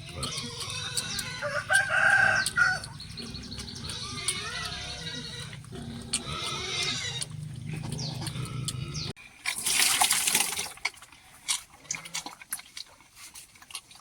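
Backyard farmyard sounds: an animal call about two seconds in, lasting about a second, over a low steady hum and scattered clicks. After a sudden break about nine seconds in comes a short loud rushing noise, then a few clicks.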